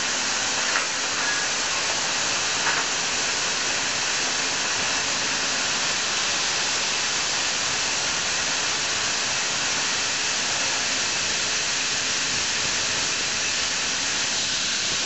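Grain dryer running with a loud, steady rushing roar that does not change, with two small clicks about one and three seconds in.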